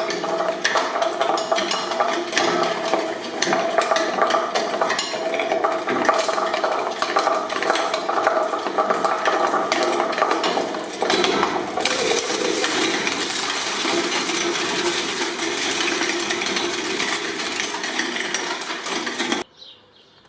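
Shredding machine chewing through material, with continuous metallic clattering and clinking over a steady motor hum; it stops abruptly near the end.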